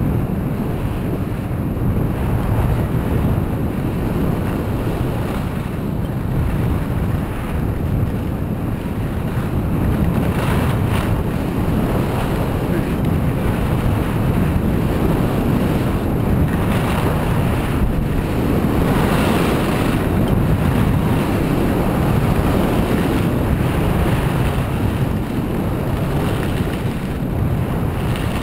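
Wind rushing over a skier's camera microphone at speed, with the skis hissing and scraping over packed, groomed snow. The scraping swells a few times, around ten seconds in and again from about sixteen to twenty seconds.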